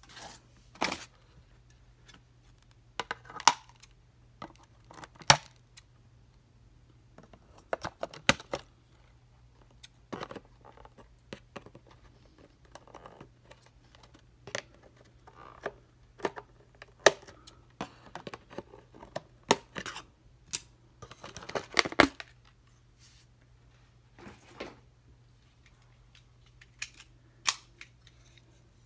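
Scissors snipping the wire twist ties that hold plastic toy figures to a cardboard package tray, with irregular sharp snips, clicks and cardboard-and-plastic rustling, and a busy flurry a little past two-thirds of the way through.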